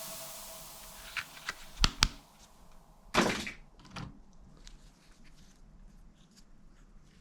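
Several sharp clicks and knocks, with a short hissing burst about three seconds in, as the tail of the music fades out.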